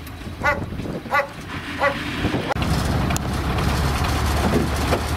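A dog barks three times, a little over half a second apart. About halfway through, the steady low running of a dump truck's engine takes over close by.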